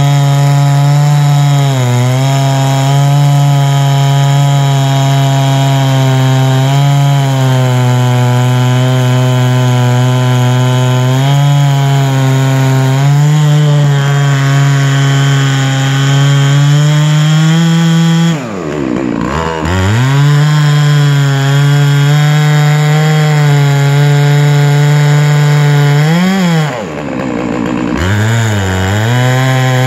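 Huztl MS660-clone two-stroke chainsaw running at full throttle under load, milling a cherry log lengthwise. The engine note holds steady except twice, about two-thirds of the way through and again near the end, when it drops sharply and then climbs back up.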